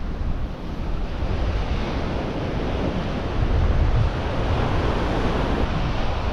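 Surf breaking and washing up a sandy beach, with wind buffeting the microphone.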